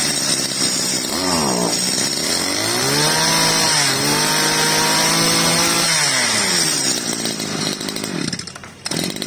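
Small Makita 20cc brush cutter engine running and being revved. There is a short rev about a second in, then it climbs to a high held speed for about three seconds and drops back to idle. It runs crisp and solid.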